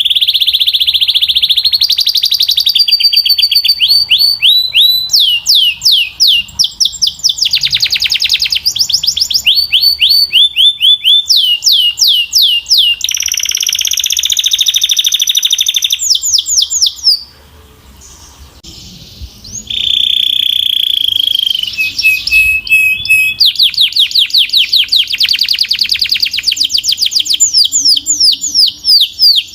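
Belgian canary singing loudly: long trills of rapidly repeated sweeping notes and rolling chirps. The song breaks off for about two seconds a little past the middle, then resumes.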